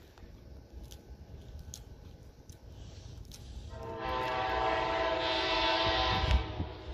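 Horn of an approaching Amtrak P42DC diesel locomotive sounding one long chord-like blast, starting about four seconds in, under low background rumble.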